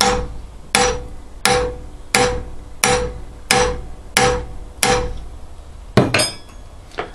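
Steel hammer striking a mild steel nail laid on the edge of a heat-treated knife blade clamped in a vise: an edge test of the hardened blade. There are about eight steady blows a little under a second apart, each with a short metallic ring, then a single louder clank about six seconds in.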